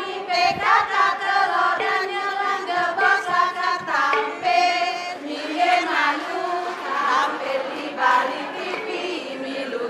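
A group of women singing and chanting a cheer song together.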